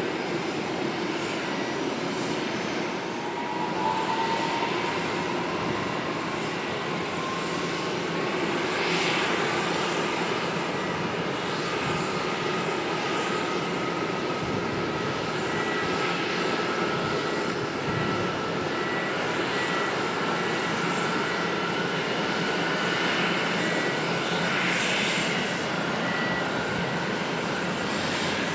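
Airliner engines running: a steady rush of engine noise with a thin whine that slowly rises in pitch.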